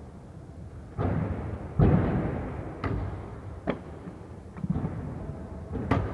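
Skateboard wheels rolling on a hard floor, with a run of sharp clacks and thumps from boards popping and landing, about one a second; the loudest comes about two seconds in and another strong one near the end. The knocks ring on in a large hall.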